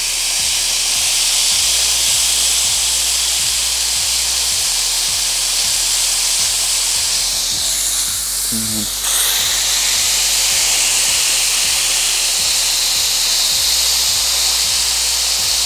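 Smashed ground-beef patties sizzling loudly on a Vevor electric flat-top griddle heated to 400 degrees, a steady searing hiss. The hiss falls away briefly about eight seconds in and jumps back about a second later as another ball is pressed onto the hot plate.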